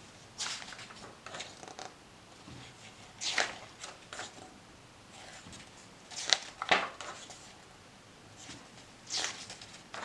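Paper rustling in short bursts, about seven over the stretch: the pages of a printed catalog being handled and turned.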